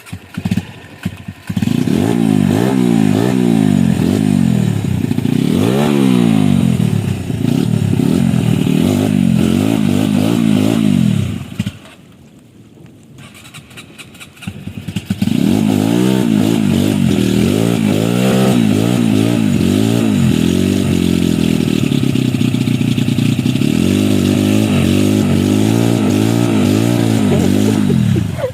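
Large-displacement trail motorcycle engine revved hard over and over, its pitch rising and falling quickly, as the stuck bike is worked to get free. The revving drops to a low idle for a few seconds near the middle, then picks up again.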